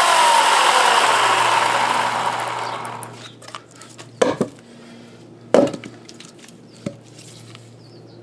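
Dry eucalyptus wood being worked by hand: a loud scraping noise that fades away over the first few seconds, then sharp wooden knocks, two loud ones and a lighter third, about a second and a half apart.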